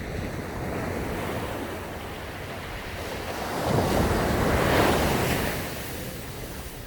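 Sea waves breaking on a sandy beach: a wave swells and crashes about halfway through, then washes back and fades. Wind buffets the microphone.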